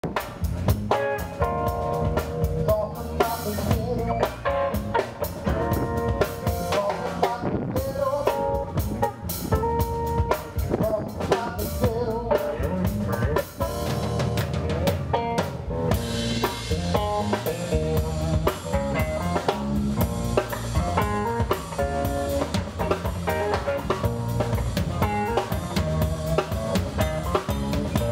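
A band playing instrumental music on drum kit, electric guitar and electric bass guitar, with a steady drumbeat throughout.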